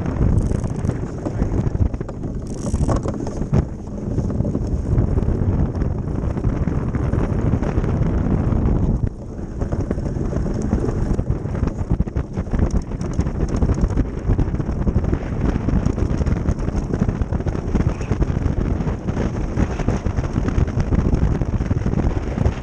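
Ice boat sailing over lake ice: the runners on the ice and wind buffeting the microphone make a steady rushing noise, which dips briefly about nine seconds in.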